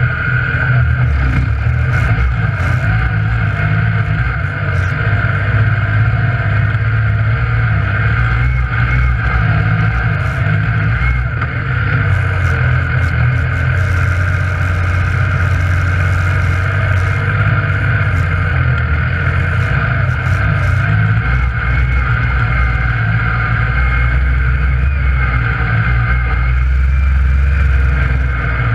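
Yamaha YXZ1000R side-by-side's three-cylinder engine running steadily at trail speed, heard from inside the cab, with small rises and falls as the throttle changes.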